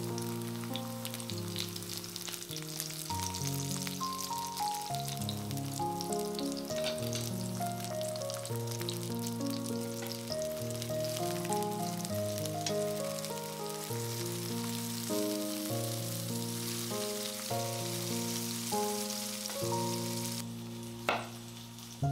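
Food sizzling as it fries in oil in a pan, under background music playing a melody of short stepped notes. Near the end the sizzling cuts out and a sharp knock follows.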